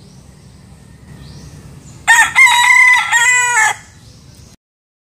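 Young rooster crowing once, a loud cock-a-doodle-doo of about a second and a half that starts about two seconds in, in two or three joined phrases.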